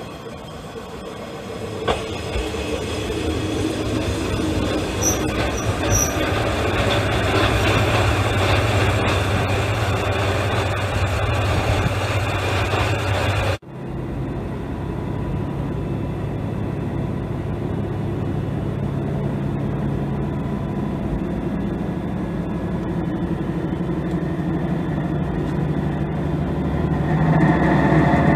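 Single-car diesel railcar coming into a station, its engine drone and running noise growing louder as it nears, with a few short high squeaks about five seconds in. After a sudden cut, the same railcar's diesel engine is heard from inside the passenger cabin as a steady, duller drone that grows louder near the end.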